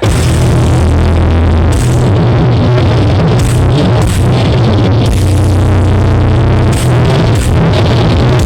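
Loud electronic dance music with a heavy, booming bass line, played through a large horeg-style sound-system rig. It kicks in abruptly at full volume.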